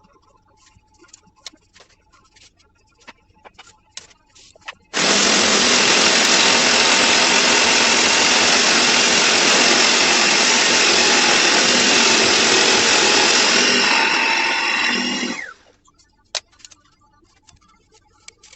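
A power tool starts abruptly about five seconds in and runs steadily for about ten seconds, then winds down with a falling pitch and stops. Light clicks and knocks of handling come before and after it.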